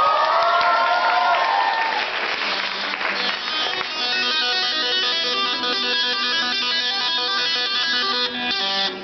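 Electric guitar through a small combo amp, played lead: sliding and bending notes at the start, a rough noisy stretch, then a quick run of picked single notes. It is more complicated than the simple riff called for.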